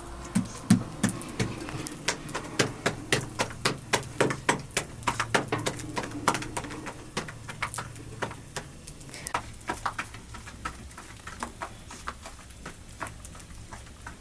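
A rapid run of sharp knocks or taps, about three to four a second, loudest in the first half, then sparser and quieter toward the end.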